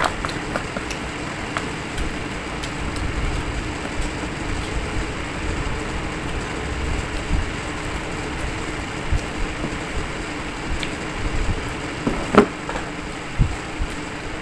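Eating sounds from a person eating with chopsticks: scattered soft clicks and mouth sounds, with one sharper click about twelve seconds in, over a steady background hum.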